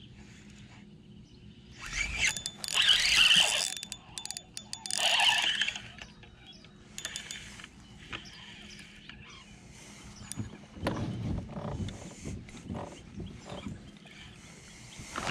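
Spinning reel being cranked as a fish is played from a kayak, with two loud bursts of noise about two and five seconds in.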